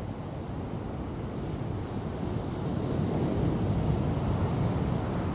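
Ocean surf breaking, with wind noise on the microphone, a steady rush that swells a little louder about halfway through.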